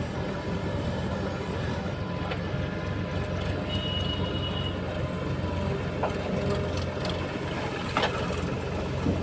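Heavy diesel machinery engine running steadily with a low rumble, with a few sharp knocks in the second half.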